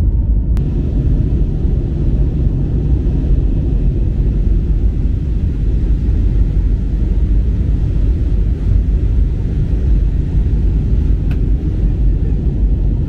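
Steady low rumble of an Airbus A320neo heard from inside the passenger cabin during the climb after takeoff: engine and airflow noise. A faint click about half a second in and another near the end.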